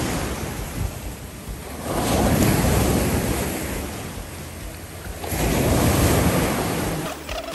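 Surf washing onto a beach, swelling twice, with wind buffeting the microphone; the sound changes abruptly near the end.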